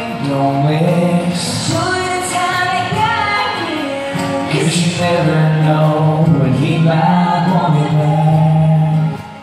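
Male and female voices singing a song together in close harmony, with an acoustic guitar underneath; the voices hold one long note that cuts off about nine seconds in.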